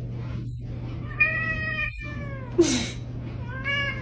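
A long-haired cat meowing: a long drawn-out meow about a second in that falls in pitch, a short sharp noisy sound just after it, and another meow near the end, over a steady low hum.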